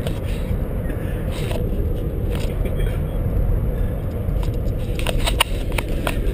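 Car cabin noise while driving: a steady low rumble of road and engine. A few sharp knocks and scrapes come about five seconds in, from the camera being handled.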